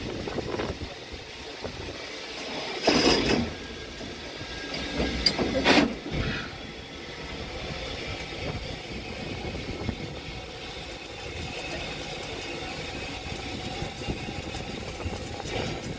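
Steam locomotive standing under steam, giving a steady hiss, with two brief louder bursts of noise about three and five and a half seconds in.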